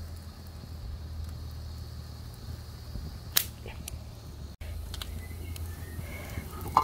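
Pot of pine cone and sugar syrup boiling on the heat, heard as a low steady hum. There is one sharp click about three and a half seconds in.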